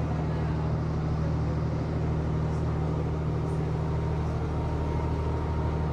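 A tour boat's engine running steadily, heard on board as a constant low drone.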